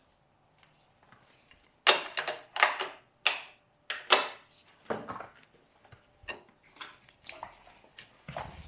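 Socket ratchet clicking in a string of short bursts as bolts on a motorcycle's clip-on handlebars and top yoke are worked loose, with light metal clinks. The clicks start a couple of seconds in, about one burst every second.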